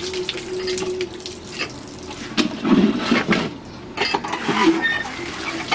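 Hands stirring and turning chopped eggplant and vegetable strips in water in a plastic bucket: uneven sloshing and rustling, with a few sharper clacks.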